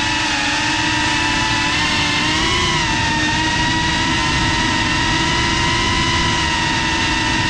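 FPV quadcopter's brushless motors and propellers whining steadily, recorded on its onboard camera, with a slight rise and fall in pitch about two and a half seconds in.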